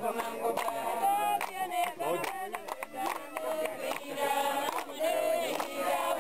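A group of men and women singing together, a continuous chorus of voices.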